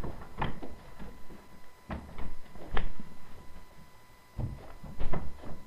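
A series of irregular thumps and knocks, about six of them, sound-effect movement in a house.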